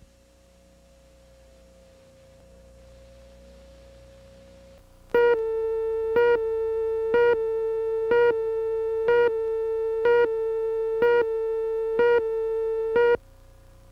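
Line-up tone under a videotape slate, with no speech. For about five seconds there is only a faint steady tone. Then a loud, steady, buzzy tone comes in, marked by a short blip about once a second for about eight seconds, and cuts off about a second before the end.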